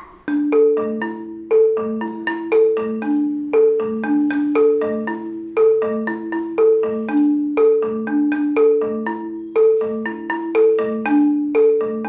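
Marimba playing a steady, repeating bunde figure: a few struck notes cycle over and over, each ringing briefly before the next.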